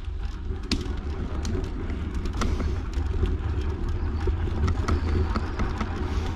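Bicycle riding along a path: a steady low rumble of wind on the microphone with tyre noise, and scattered sharp clicks and rattles throughout.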